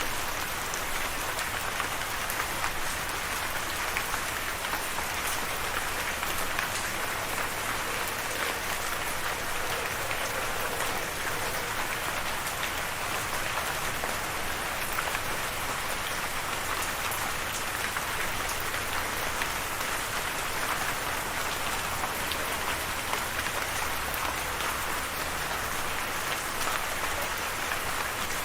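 Steady rain: an even hiss of falling water with individual drops ticking through it.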